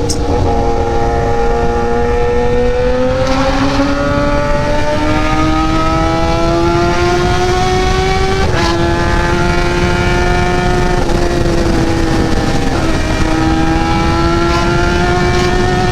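Kawasaki ZX-10R inline-four engine pulling hard under acceleration, its pitch climbing steadily and dipping briefly twice as it shifts up, over wind rushing across the microphone.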